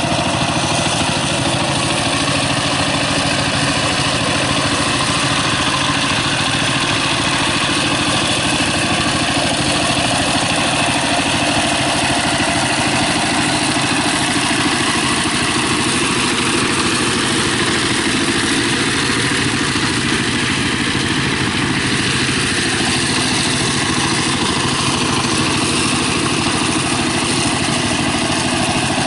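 Walking tractor's single-cylinder diesel engine running steadily under load, driving a rotary tiller through flooded paddy mud.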